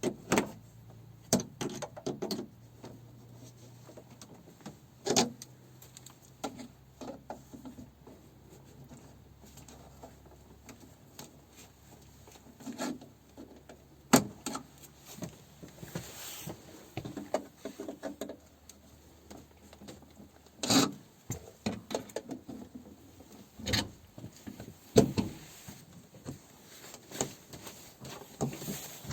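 Hands-on handling noise: irregular knocks, clunks and clicks with some rubbing, as objects are moved and set down. A faint low hum runs underneath for the first ten seconds or so.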